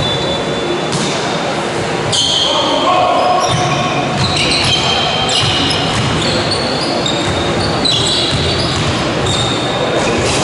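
Basketball being played in an echoing sports hall: shoes squeaking in many short high chirps on the hall floor from about two seconds in, with the ball bouncing.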